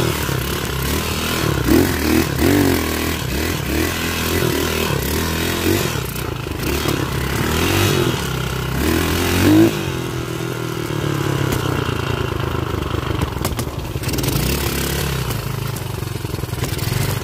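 Dirt bike engine running under changing throttle, its pitch rising and falling, climbing to a peak about nine and a half seconds in and then dropping back. Scattered knocks and clatter from the bike over rough trail ground.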